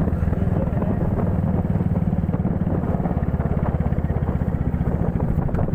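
Royal Enfield motorcycle's single-cylinder engine running steadily under way, with an even, fast beat of firing pulses.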